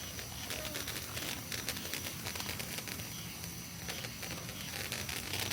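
Faint night ambience: a steady high-pitched insect drone with scattered faint crackles and a low hum.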